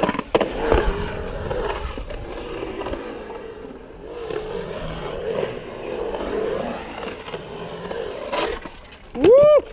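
Skateboard wheels rolling and carving on a smooth concrete bowl, a steady rumble with a few clacks. Near the end comes one short, loud squeal that rises in pitch and then holds.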